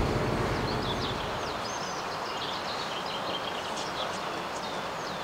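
Small birds chirping again and again over a steady hiss of outdoor background noise; a low rumble drops away about a second and a half in, and the whole sound slowly fades.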